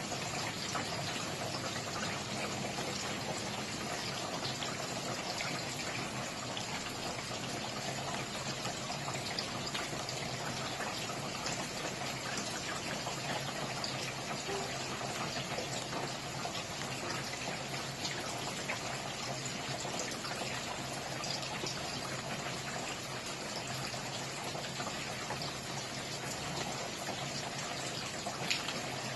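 Steady rainfall: an even hiss of rain with many small drop ticks, with no letup.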